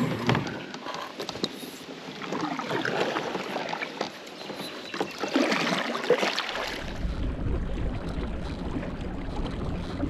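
Kayak moving across the water, with water swishing and rippling along the hull in swells every couple of seconds. Wind rumbles on the microphone from about two-thirds of the way in.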